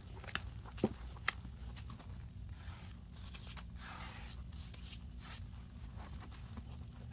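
A sponge pressed and squeezed by gloved hands in a thick, foamy paste of Comet cleaning powder and liquid: wet squishing and crackling of the foam. A few sharp clicks in the first second and a half, then softer swishes.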